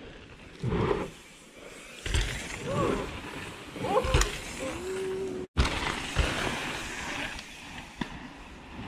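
Mountain bikes riding dirt jumps: tyres rolling on packed dirt, with thuds of landings about one, two and four seconds in. A person's voice calls out briefly in the middle, and the sound cuts out for an instant after it.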